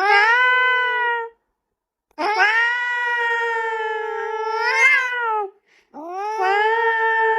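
A cat yowling: three long drawn-out meows, each sliding up at the start and then held on one pitch, the middle one the longest with a brief upward lift near its end.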